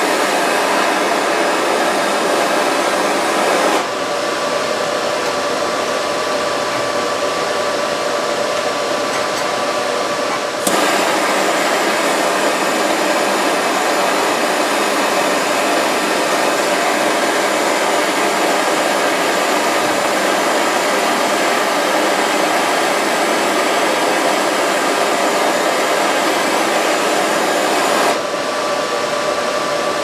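Handheld gas torch flame burning with a steady rushing hiss, heating a clamped stainless steel spoon red hot to soften it for bending. The hiss steps down in level about four seconds in, back up about eleven seconds in, and down again near the end.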